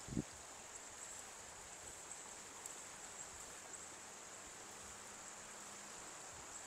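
Faint evening riverside ambience: a steady high-pitched insect buzz over a soft hiss, with one brief low thump just after the start.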